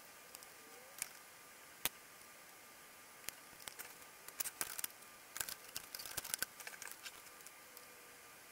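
Faint handling noises of the amplifier's circuit board being moved and turned over: a few sharp clicks, then a run of small clicks, rattles and crinkles over several seconds. A faint steady high tone sits underneath.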